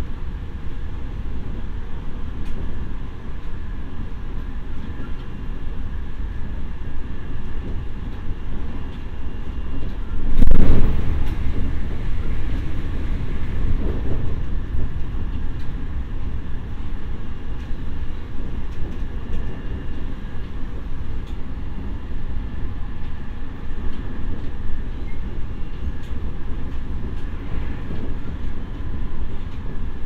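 E501-series electric train's motor car running at speed: a steady rumble of wheels on rail and traction motors. About ten seconds in a loud rushing swell rises for a second, with a smaller one a few seconds later.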